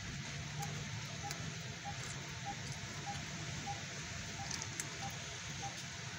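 Puppies suckling at their mother's teats, with soft scattered clicks and smacks over a steady hiss. A faint high peep repeats evenly, about once every half second or so.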